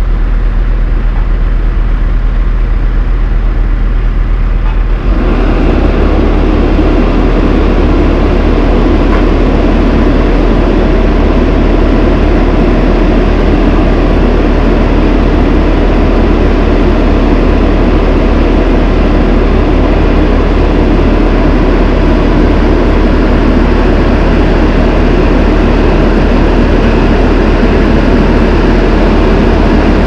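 Diesel engine of an Ammann AV115-2 tandem road roller running steadily as the roller drives along, louder and fuller from about five seconds in.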